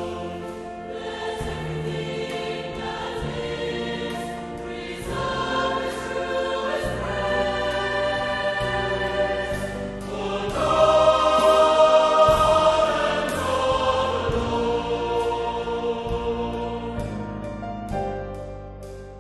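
Salvation Army songster choir singing a slow hymn in harmony, swelling loudest about halfway through and dying away near the end.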